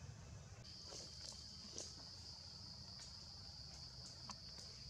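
Faint, steady, high-pitched drone of insects in the forest, starting about half a second in, with a few faint ticks over it.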